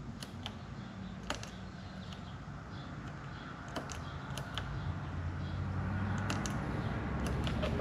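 Irregular small plastic clicks from the freshly cleaned and re-greased turn signal switch being pushed and cancelled by hand. A low hum grows louder through the second half.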